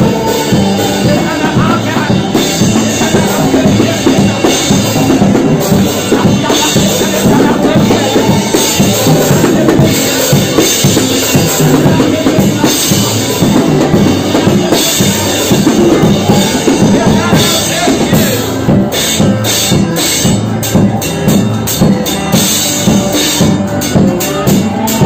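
Live church band playing: a drum kit with kick and snare keeping a steady beat, under guitar and electronic keyboard.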